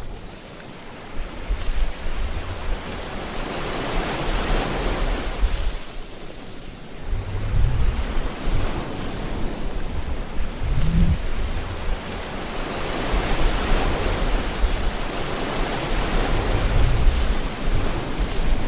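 Ocean waves breaking and washing ashore: a continuous surf hiss that swells and eases every few seconds, with low rumbles as the larger waves break.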